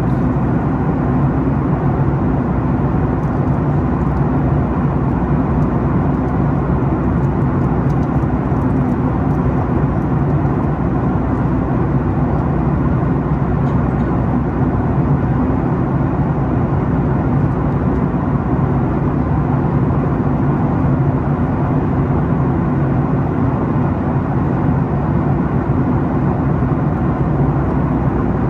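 Steady low drone of airliner cabin noise in flight aboard a Boeing 737 MAX 8: its CFM LEAP-1B turbofan engines and the airflow over the fuselage, heard from a window seat.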